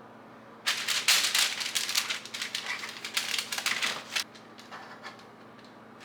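A fork clicking and scraping rapidly against a bowl while dipping truffles in melted chocolate, for about three and a half seconds starting just under a second in.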